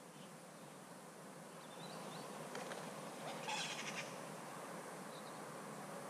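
Faint background hiss with a few brief bird chirps, and a short rapid rattle of clicks about three and a half seconds in.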